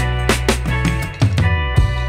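Background music with a steady drum beat, bass and guitar.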